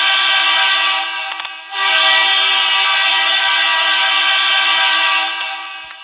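The Bakersfield Condors' hockey goal horn blowing in long, loud blasts. One blast fades out under two seconds in, and the next sounds for about four seconds before fading near the end.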